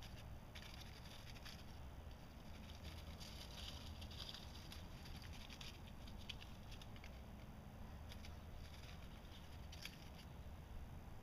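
A shrew scurrying through dry leaves: faint, irregular rustling and crackling in quick patters, busiest a few seconds in and again near the end.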